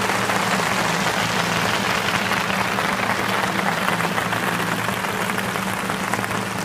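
Large crowd applauding, a dense steady clatter of many hands, with a low steady hum beneath it.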